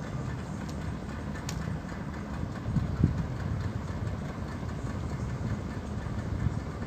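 An engine running steadily with a low rumble, with a couple of brief thumps about three seconds in.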